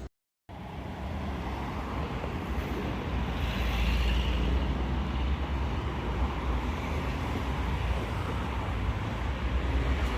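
Steady road-traffic noise with a deep rumble, coming in after a brief moment of silence at a cut.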